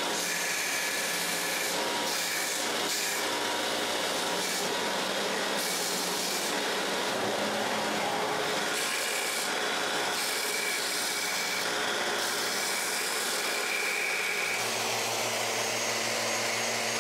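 Power sanding of wood: a bench sander runs steadily as the CNC-cut pieces are held against it to grind off their leftover tabs. Near the end its hum changes to that of a random orbital sander working the wood.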